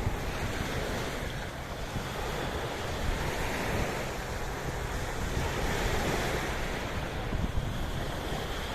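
Sea waves washing in, a steady surf noise that swells and eases slowly, with wind rumbling on the microphone.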